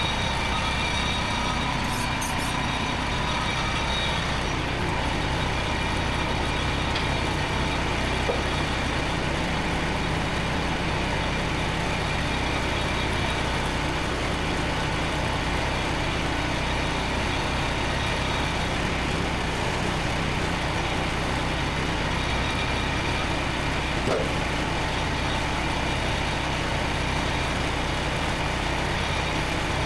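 Frontier OS27 portable bandsaw mill running steadily, its engine holding an even note throughout.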